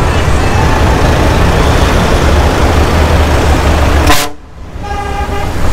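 Loud steady noise of highway traffic. After a sudden drop about four seconds in, a vehicle horn sounds one steady held tone.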